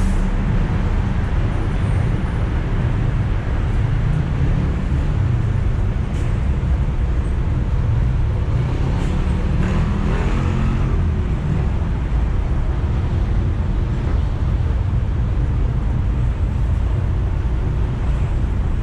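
Inside a moving public bus: the steady low rumble of the engine and road noise, with a few faint rattles and ticks and a slight swell about ten seconds in.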